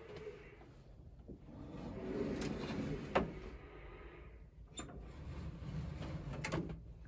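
Rustling and handling noise from someone shifting about in an aircraft cockpit seat, with a few sharp clicks and knocks, the loudest about three seconds in.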